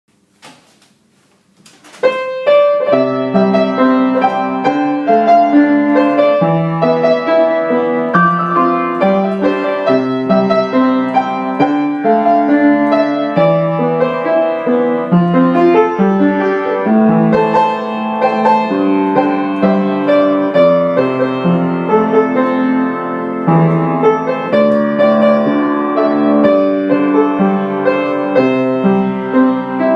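Piano playing a melody over chords, starting about two seconds in after a brief near-quiet.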